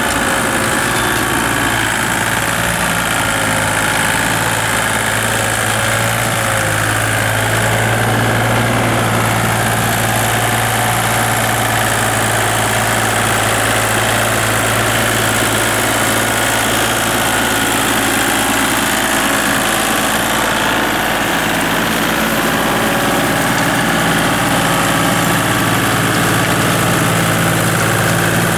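Kubota compact tractor's small diesel engine running steadily while it drives a rear rotary tiller through the field, a constant low drone with no change in revs.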